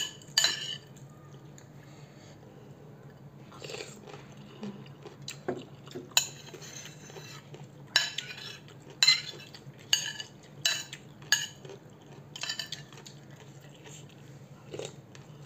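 Metal spoon clinking and scraping against a ceramic bowl of noodle soup: one sharp clink at the start, a quieter stretch, then a run of clinks from about six seconds in.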